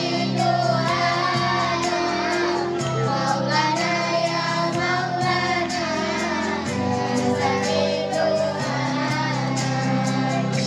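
Three young girls singing together into microphones over an instrumental backing track, with sustained low notes that shift every few seconds beneath the sung melody.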